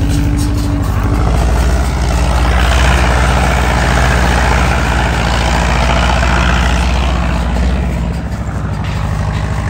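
Diesel engine of a Kubota DC-60 combine harvester running steadily at working speed with a heavy low hum, dropping a little in level about eight seconds in.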